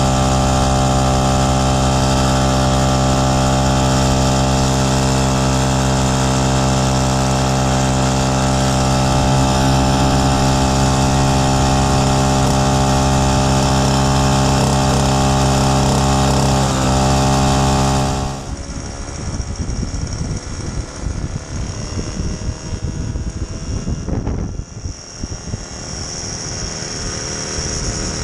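1969 Solex 3800's 49.9 cc two-stroke single-cylinder engine running at a steady cruising speed under way, an even buzz that holds one pitch. About 18 seconds in it cuts off abruptly to a quieter, rougher moped engine sound mixed with more noise.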